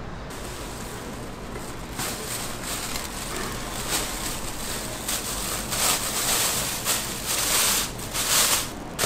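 Thin plastic bag rustling and crinkling as it is handled and opened. The crinkling comes in irregular bouts that grow louder and busier in the second half.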